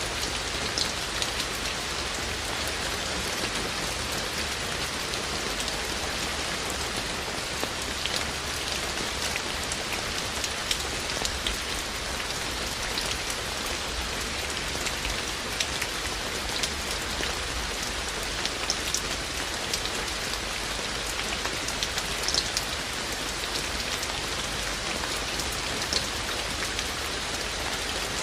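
Steady rain falling, with frequent sharp drips and drops striking close by.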